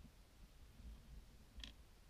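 Near silence with faint handling noise and one short, sharp click about one and a half seconds in, from hands working a 3D-printed doll and a pair of hemostat forceps.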